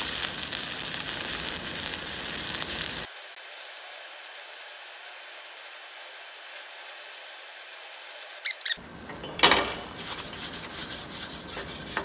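Stick-welding arc from a 7018 electrode at about 89 amps on a Blue Demon BlueArc 200MSTI inverter running on 110 V: a steady crackle and hiss, loud for about three seconds and then quieter. Near the end, a wire brush scrubs the fresh bead in a few scraping strokes.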